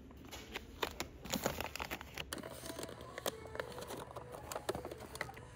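Plastic snack pouches crinkling and rustling as they are handled and pushed back into a store shelf, in a run of small irregular crackles.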